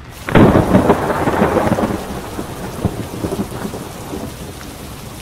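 A thunderclap that breaks suddenly about a third of a second in and rumbles away over the next few seconds, over steady rain.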